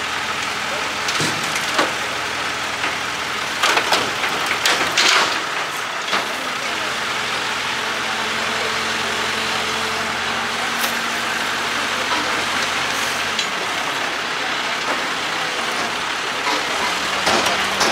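Heavy diesel vehicle engine running steadily, settling into a steadier, even hum for several seconds midway. A cluster of sharp knocks and clatter sounds over it in the first few seconds.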